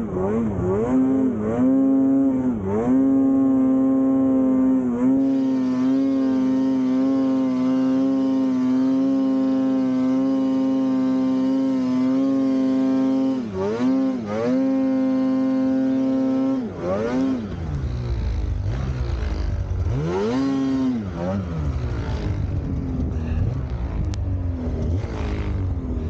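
Two-stroke snowmobile engine running at high revs, held steady for long stretches with a few quick throttle lifts and blips. About two-thirds of the way in the note drops into a deeper rumble, and the revs rise and fall repeatedly from there on.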